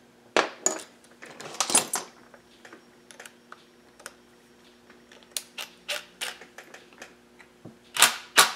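Metal tools clicking and clattering on a workbench while a bit is handled and fitted into a cordless drill, with scattered light ticks and a few louder bursts near the end.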